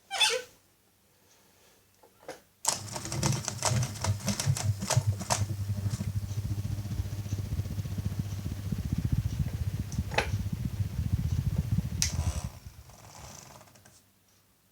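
Niko FC-06-600 mini ceiling fan running with a steady low hum and a dense, rapid ticking rattle. It cuts in with a click about three seconds in and stops abruptly near the end.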